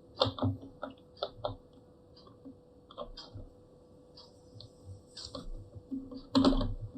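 Small sharp clicks and taps of a PH000 precision screwdriver and a tiny screw being fitted into a laptop's plastic display panel. There is a quick run of clicks at the start, sparse faint ticks after that, and a louder clack near the end.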